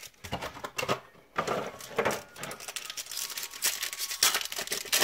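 Foil Yu-Gi-Oh booster-pack wrapper crinkling in the hands and being torn open, with irregular crackles throughout.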